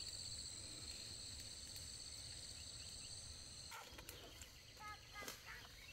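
An insect trills steadily at a high pitch and stops abruptly a little past halfway. A few faint short calls follow near the end.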